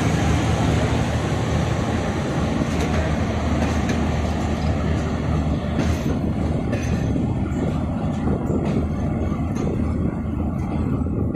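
Pakistan Railways passenger coaches rolling past on a departing train: a steady rumble of wheels on rail, with scattered sharp clicks and clanks over the rail joints.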